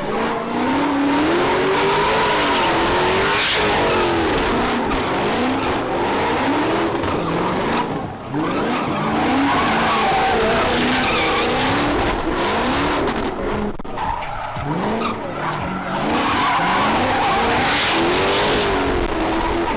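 Cars drifting and spinning donuts: engines held at high revs, their pitch rising and falling again and again, over a continuous screech of spinning tyres.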